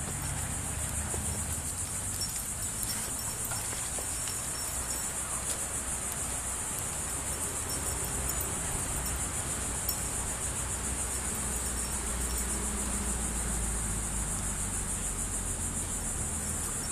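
A steady, high-pitched insect chorus with a fast pulsing trill, over a low rumble.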